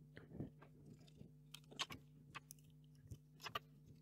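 Faint, scattered plastic clicks and taps as the opened charging case of true-wireless earbuds and its loose parts are handled and fitted back together by hand, over a low steady hum.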